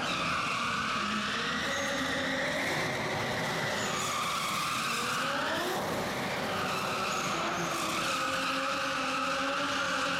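Nissan 200SX drift car's engine revving up and down as it slides through a drift, with the tyres skidding and squealing underneath.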